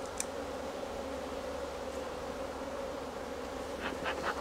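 Many honeybees buzzing in flight around an opened hive, a steady hum.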